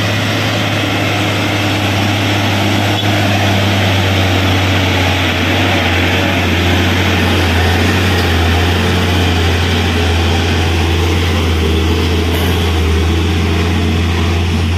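Hino 500 FM 260 JW dump truck's diesel engine pulling up a climb as the truck passes close by: a loud, even, deep drone that holds steady throughout.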